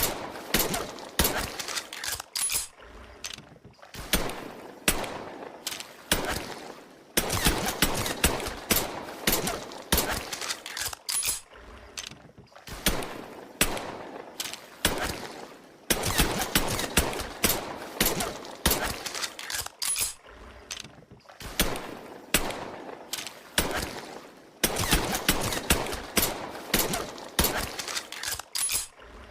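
Colt M1911 pistol shots, sharp and sudden, fired in clusters with shorter gaps between, in a sequence that repeats about every nine seconds.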